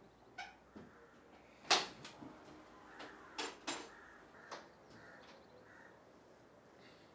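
Crows cawing at intervals: several short, harsh caws, the loudest about two seconds in and a quick pair of caws near the middle.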